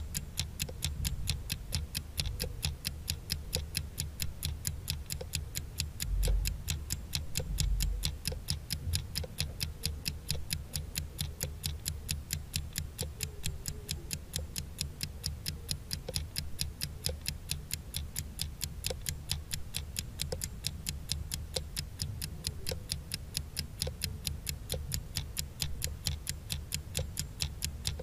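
Countdown-timer sound effect: a clock ticking steadily, several even ticks a second, over a low hum.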